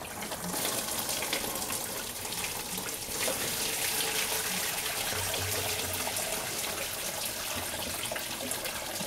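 Engine coolant pouring steadily out of a BMW 528i's engine as the water pump is worked loose, splashing into a drain pan below.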